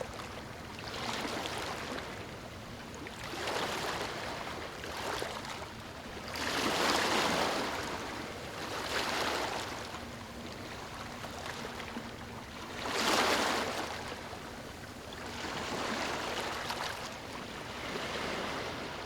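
Ocean waves breaking and washing in, the surf swelling and ebbing every couple of seconds, with two bigger waves about a third of the way in and again past the middle.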